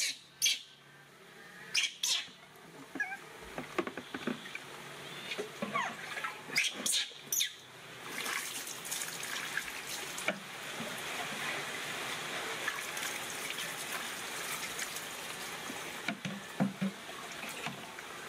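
Water splashing during a baby monkey's bath: sharp splashes and slaps of wet hands on fur in the first half, then a steady rush of water being poured and splashed over it from about eight seconds in. A few faint squeaks from the monkey come in between.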